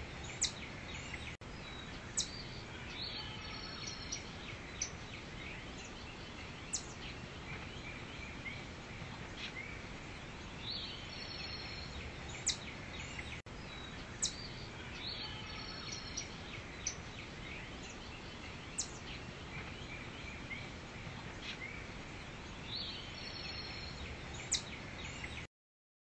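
Forest ambience: a steady background hiss with short, sharp bird chirps scattered through it, seeming to loop about every twelve seconds with a brief dropout at each seam. It cuts off abruptly just before the end.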